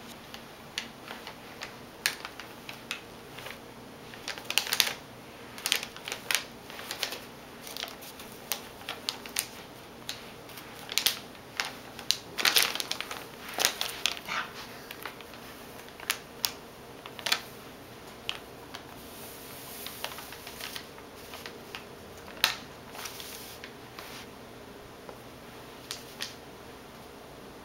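A sheet of paper crinkling and rustling in irregular short crackles as a cat bites and paws at it and a hand pats and tugs it. Busiest in bursts a few seconds in, around the middle and once near the end, over a faint steady hiss.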